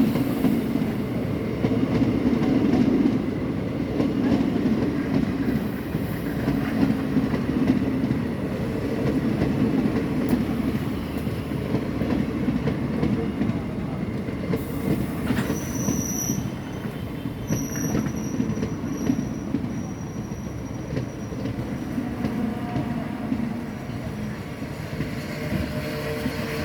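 Passenger train running on the rails with a steady rumble of wheels and coaches. Past the middle, a high-pitched wheel squeal comes and goes several times over a few seconds.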